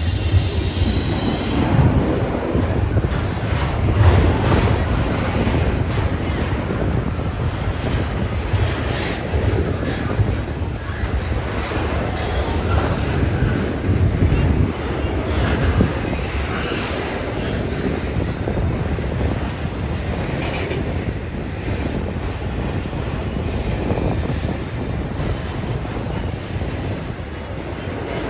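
Intermodal freight train's container cars rolling past close by: a steady heavy rumble of wheels on rail with repeated clicks and clatter, and faint high wheel squeals now and then.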